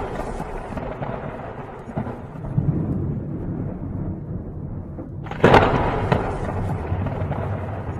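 Logo intro sound effect of thunder-like crashes: a rumble dying away, then a second sudden crash about five and a half seconds in that rumbles on.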